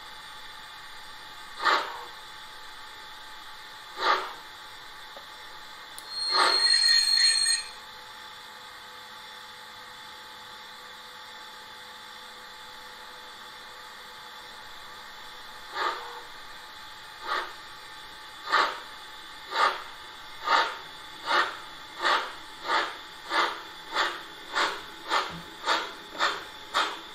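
Steam-locomotive sound from the LokSound 5 decoder of a Gauge 1 Prussian T3 (class 89) tank engine model: a few slow steam puffs, a short whistle about six seconds in, then from about sixteen seconds exhaust chuffs that quicken steadily to nearly two a second as the locomotive pulls away.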